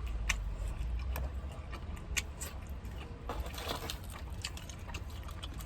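Close-up chewing of a pizza slice: small wet mouth clicks and soft crunches, coming irregularly, over a low steady hum.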